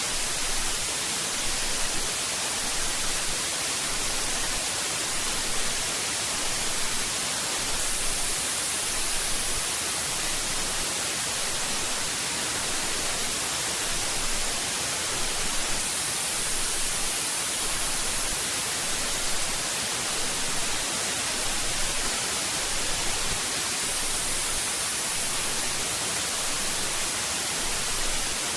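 Synthetic white noise sound effect: a steady, even hiss with no pitch or rhythm, strongest in the high frequencies.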